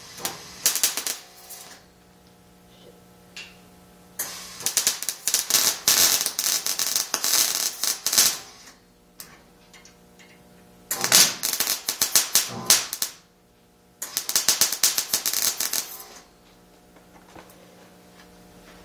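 Electric arc welding on thin 16 gauge sheet steel: four separate bursts of rapid crackling, the longest about four seconds, as the bead is laid in short runs. A steady low hum runs underneath between the bursts.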